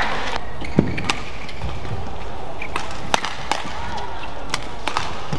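Badminton rackets hitting a shuttlecock in a rally: sharp cracks at irregular intervals, about seven in all, over the steady noise of the hall, with a thud of footwork about a second in.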